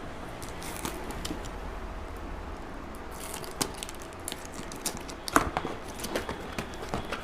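Cardboard packaging and paper being handled while items are taken out of a camera box: scattered rustles, taps and clicks that grow busier in the second half, with one sharper click about five seconds in.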